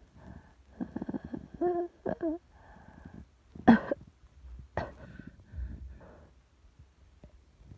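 A person's wheezy asthmatic breathing while holding back a cough: ragged breaths with a whistling, wavering wheeze, then two sharp stifled cough-like bursts about halfway through, the first the loudest, followed by quieter breaths.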